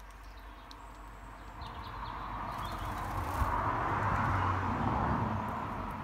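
A passing road vehicle: a rushing sound swells over a few seconds, is loudest about two-thirds of the way through, then fades. A few faint bird chirps sound over it.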